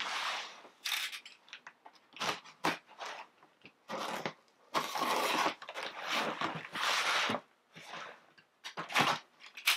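Packing tape on a cardboard shipping box being slit with a box cutter and pulled off: a string of short scraping and tearing sounds, with the cardboard rustling and knocking.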